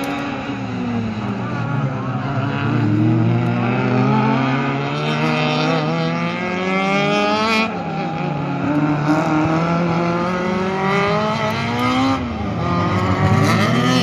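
Engines of several 1.6-litre class race cars revving hard as they accelerate, their pitch climbing through each gear. The pitch drops sharply at a gear change about eight seconds in, and again near the end.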